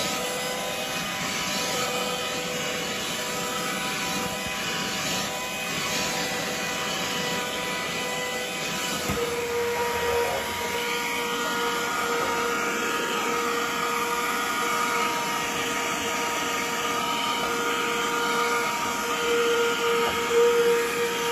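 Brigii handheld cordless mini vacuum running steadily, a motor whine over the rush of air through the nozzle. About nine seconds in, the whine shifts slightly higher and grows stronger.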